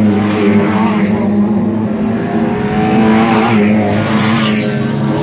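Lightning Rod stock cars racing past, several engines running hard one after another as the cars go by close at hand, each pass swelling and fading.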